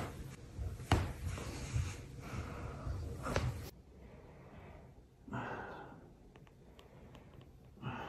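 Back popping under a person's feet as they stand and step on someone's back: two sharp cracks, about a second in and again near three and a half seconds, with smaller clicks between. Later comes a breathy exhale from the person lying face down under the weight.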